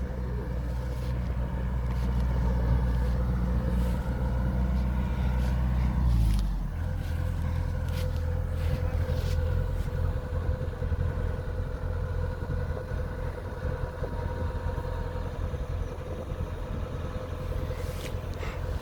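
Rice combine harvester's engine and machinery running steadily, a continuous low drone with a steady whine above it; the engine note shifts about six seconds in.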